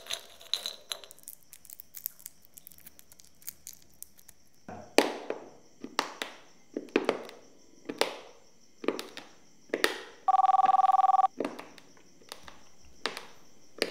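A series of sharp knocks about a second apart, then a telephone rings once: a single two-tone ring lasting about a second. A faint steady high-pitched whine runs underneath.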